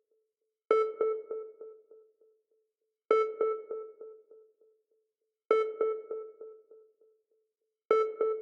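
Sonar ping sound effect: four pings about two and a half seconds apart, each a sudden ringing tone followed by a quick series of fading echoes.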